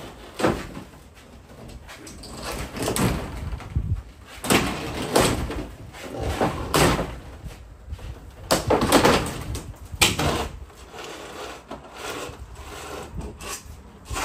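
Wooden siding being pried off a house wall: repeated, irregular creaks, scrapes and knocks of boards and nails pulling loose.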